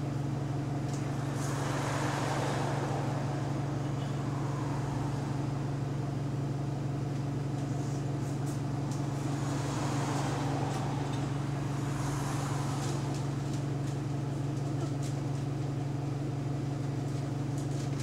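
Bus engine and exhaust heard from inside the saloon: a steady low drone with road noise swelling and fading a few times. The title puts the sound down to an exhaust leak.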